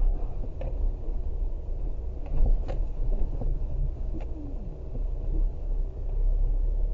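Vehicle driving slowly on a rough dirt track, heard from inside the cabin: a steady low rumble of engine and tyres, with a few sharp knocks and rattles from the bumps of the track.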